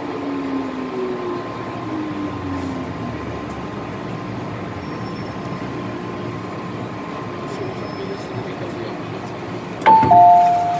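MTR M-Train electric multiple unit braking into a station, heard from inside the car, its motor whine falling in pitch as it slows to a stop. About a second before the end a loud two-tone chime, high then low, sounds as the doors open.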